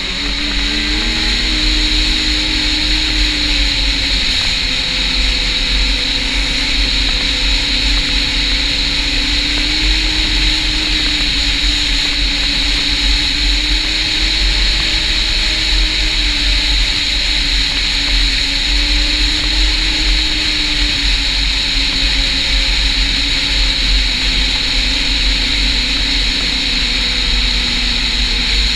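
Snowmobile engine running under way. Its pitch rises about a second in as the throttle opens, then holds fairly steady with small rises and falls, easing down near the end. A steady high whine and a low rumble run under it.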